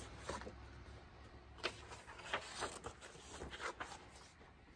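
Faint rustles and soft taps of a paperback picture book being handled and its pages turned, a few short scattered sounds over a low steady room hum.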